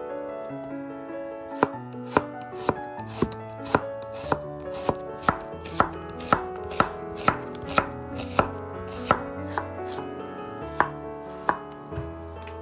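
Chef's knife slicing an onion on a bamboo cutting board: sharp knocks of the blade on the board about twice a second, starting a couple of seconds in, over background music.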